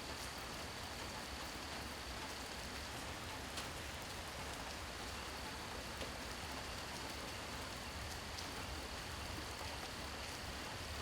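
Steady rain falling, an even hiss with a few louder single drops. A thin, steady high tone runs through it, breaking off about three seconds in and returning about two seconds later.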